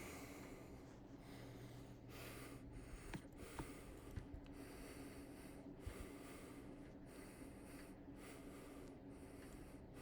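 Three Saturn ceiling fans running together on speed 6: a faint steady motor hum under a soft rush of moving air that swells and dips about once a second, with a few light clicks.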